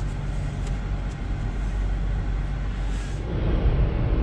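Steady low engine and road hum heard from inside a Honda Fit's cabin. The background hiss changes about three seconds in.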